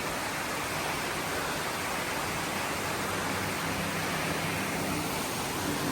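Falls on the Pigeon River rushing steadily, an even roar of falling water.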